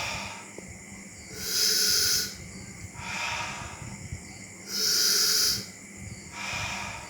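A person doing steam inhalation, breathing in through the nose and out through the mouth in slow, even breaths. Louder hissing breaths alternate with softer, lower ones, about one full breath every three seconds.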